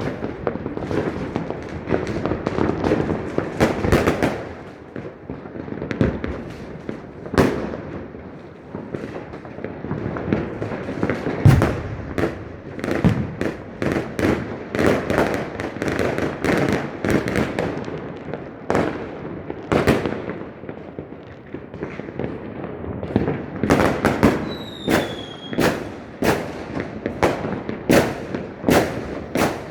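Fireworks going off in quick, irregular succession: many sharp bangs over continuous crackling. Near the end a short falling whistle rises above them.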